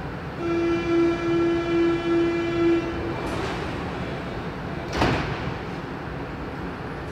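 Berlin U-Bahn train's door-closing warning: a pulsing high beep, about five pulses over two and a half seconds, then a single thud about five seconds in as the sliding doors shut.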